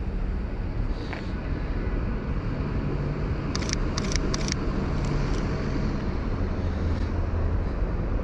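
Outdoor street ambience: a steady low rumble of road traffic. About halfway through comes a quick run of four sharp clicks.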